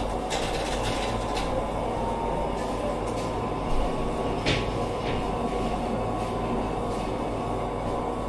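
Supermarket ambience: a steady low rumbling hum with a few light clicks and knocks, the clearest about four and a half seconds in.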